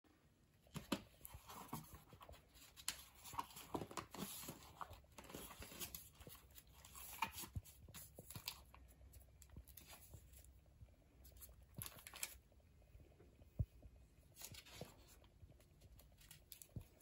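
Pages of a thick collage journal being turned and handled by hand: faint paper rustling and crinkling with soft taps and clicks, busier in the first half and sparser later.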